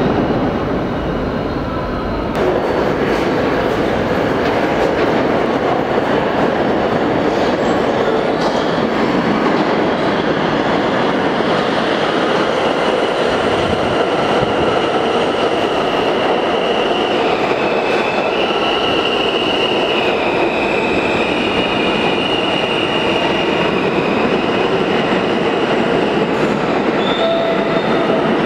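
New York City subway trains, including R160A cars, running through an underground station: a continuous loud rumble of wheels on rail and traction motors. From about halfway through until near the end there is a high metallic squeal that steps up and down in pitch.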